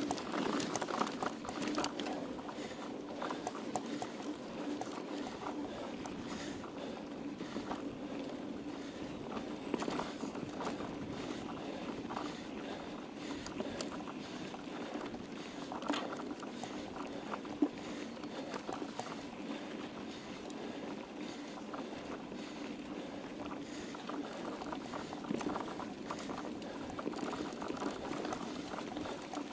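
Mountain bike riding fast over a sandy dirt track: the tyres rolling with a steady crackling hiss, and the bike rattling and clicking over bumps, with a few sharper knocks.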